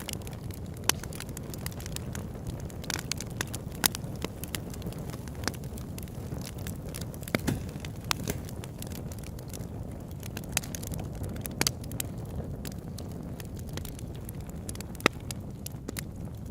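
Campfire crackling: irregular sharp pops and snaps of burning wood over a steady low rush.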